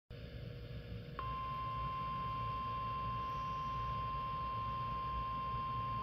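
The NOAA Weather Radio warning alarm tone (about 1050 Hz) for the required weekly test, played through a Midland weather radio's speaker: one steady, unbroken high tone that starts sharply about a second in.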